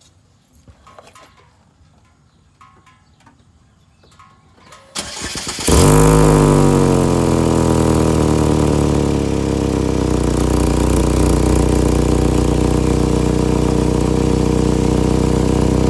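2012 Chevy Equinox engine cranked and started about five seconds in, flaring briefly and settling to a steady, loud idle with a hissing edge. The exhaust is escaping through a cracked resonator.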